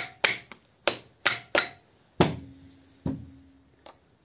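Small hammer tapping the tops of the valve stems on a pit bike cylinder head. Quick sharp taps for the first second and a half, then two heavier knocks with a short ring about two and three seconds in. The tapping seats the freshly fitted valve keepers so they will not pop out later.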